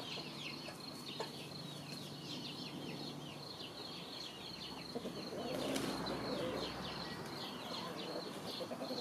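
Backyard chickens clucking, louder from about halfway through and again near the end, over continuous quick, high falling chirps.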